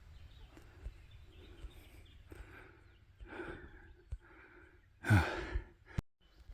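A man breathing hard between words: a few soft breaths, then a loud sigh with a falling pitch about five seconds in.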